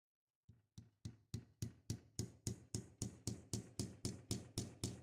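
A small hammer tapping steadily on metal, about three or four sharp strikes a second, starting soft and quickly growing louder: peening the handle pins of a pocket knife being rehandled.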